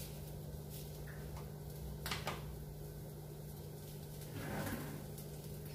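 Kitchen handling sounds over a steady low hum: a sharp clink about two seconds in as a metal spoon is set down, and a brief rustle near the end.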